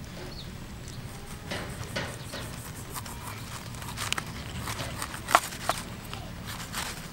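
Knife cutting through a green lime onto a wooden board covered with a leaf: a few short, irregular knocks and crunches as the blade goes through the fruit and strikes the board, the sharpest about two thirds of the way through, over a steady low background hum.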